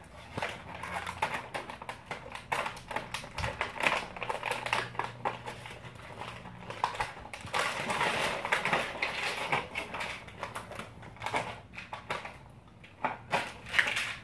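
Irregular plastic clicks, taps and rattling as toy Nerf blasters are handled and reloaded with foam darts.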